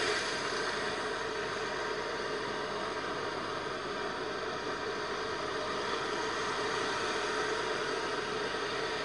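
Sea surf washing against the rocks of an eroded shoreline, a steady rushing noise.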